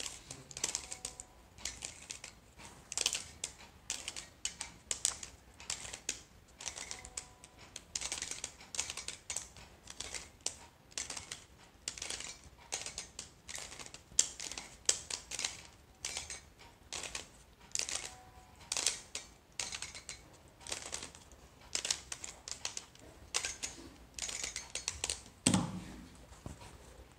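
Stickerless plastic 3x3 speed cube turned rapidly by hand: a fast, irregular run of clicks and clacks as the layers snap round. Near the end there is a heavier knock as the cube is set down on the table.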